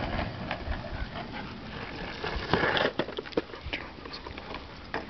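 A black Belgian sheepdog (Groenendael) panting close by, with one strong breathy burst about two and a half seconds in and scattered light taps.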